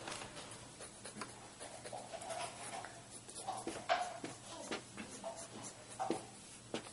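Marker drawing on paper: irregular scratchy strokes, with several short squeaks as the tip drags along the sheet.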